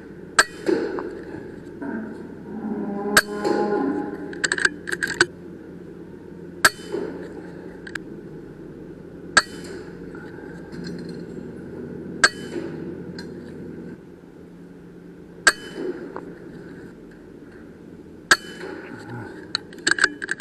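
A .22 PCP air rifle, the AGT Uragan 2, firing again and again: a sharp crack about every three seconds, seven in all, with lighter metallic clicks between them as the action is cycled. A steady low hum runs underneath.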